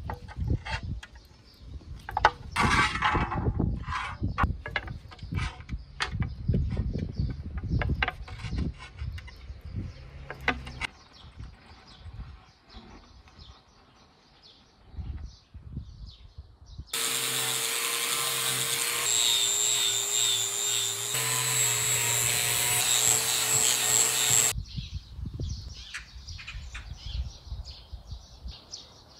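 Sharp metallic clicks and knocks as a stainless steel griddle plate's handle tabs are bent with pliers. About seventeen seconds in, a power tool runs steadily for about seven seconds, its pitch stepping twice, then cuts off suddenly.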